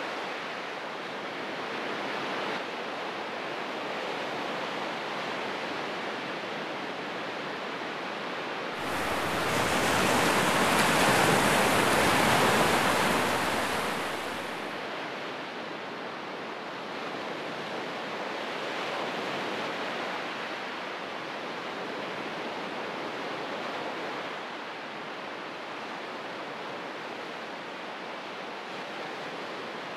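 Waves washing onto a rocky shore, a steady rush of surf. It turns much louder and fuller for about six seconds in the middle, starting and stopping abruptly.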